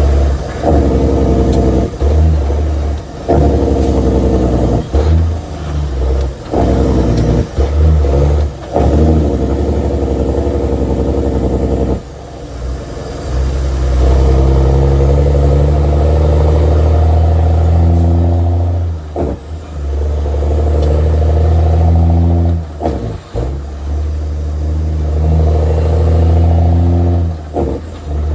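Caterpillar C-15 inline-six diesel of a truck pulling through the gears of an 18-speed transmission, heard from inside the cab. The engine note climbs in pitch and cuts off at each gear change, with quick shifts in the first several seconds and longer, steadier pulls after about fourteen seconds in.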